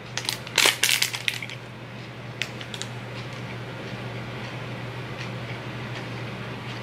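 Crinkly protein-bar wrapper being peeled back, a quick run of sharp crackles in the first second and a half, then a couple of faint crackles. A steady low hum runs underneath.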